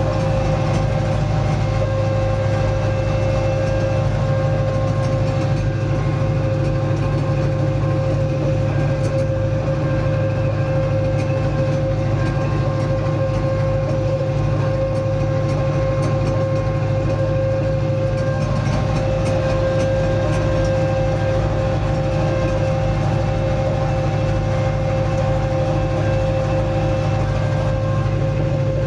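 Tractor engine running steadily while it powers a crop sprayer applying insecticide against scale insects, a constant hum with a steady high-pitched tone above it.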